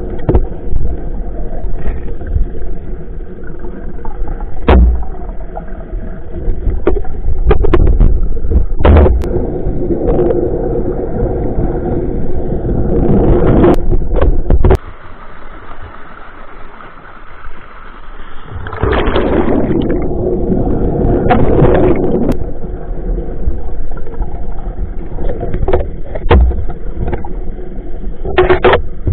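Underwater sound: a steady hum with gurgling water and scattered sharp clicks, dropping away suddenly for about four seconds midway before returning.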